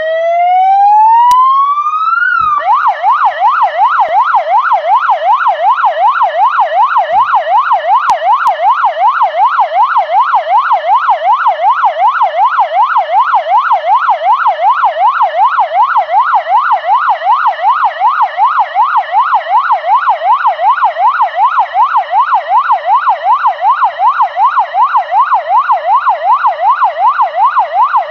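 Police car siren. It rises in one slow sweep for about two seconds, then switches to a fast yelp that goes up and down about three times a second.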